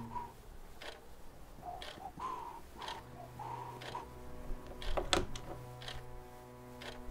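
Quiet passage of the film score: faint held low notes under a soft tick about once a second, like a clock, with the loudest tick about five seconds in.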